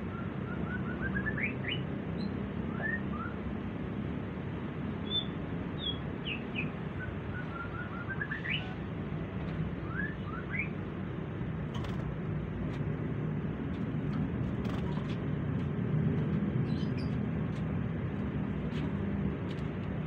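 Small bird chirping in a few quick series of short rising notes during the first half, over a steady low background rumble. Faint light clicks are scattered through the second half.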